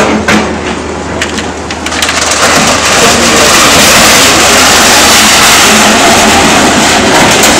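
Excavator tearing down a house: corrugated metal roofing and broken masonry crash and scrape together in a loud, continuous din that sets in about two seconds in.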